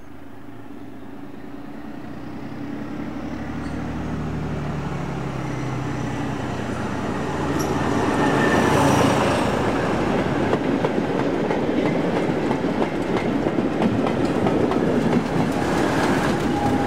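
A diesel train approaching and going past. The engine's steady tone grows louder over the first several seconds, then from about halfway a loud rush of wheel noise with clicking over the rail joints takes over as the train passes.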